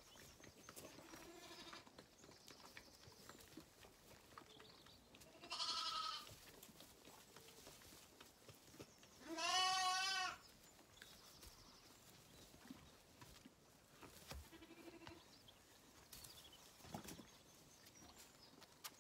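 Zwartbles lambs bleating: four separate calls, two faint and two clear, the loudest and longest about halfway through.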